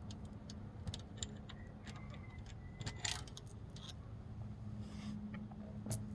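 Timing chain of a Ford 2.3L Duratec engine being worked off its sprockets: faint, scattered metallic clinks and light rattles of the chain links and tools, with a low steady hum underneath.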